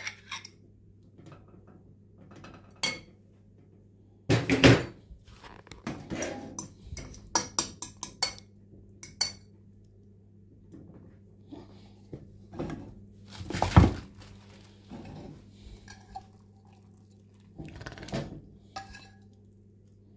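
Metal fork scraping and clinking against a glass bowl and a plate as food is scraped out and spread, in irregular bursts with two louder knocks, about four and fourteen seconds in. A faint steady low hum runs underneath.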